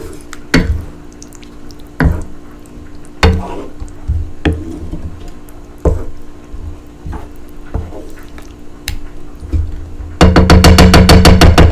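Wooden spatula stirring a thick, chunky tomato sauce in a large nonstick frying pan: wet squelches and irregular knocks of the spatula against the pan about once a second, over a steady low hum. Near the end a loud, rapid buzzing rattle lasts about a second and a half.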